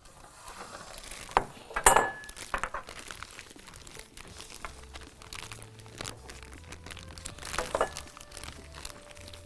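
Clear plastic bag crinkling and rustling as it is handled with gloved hands. A bowl clinks sharply against the counter twice about two seconds in, the loudest sounds, and once more about two seconds from the end.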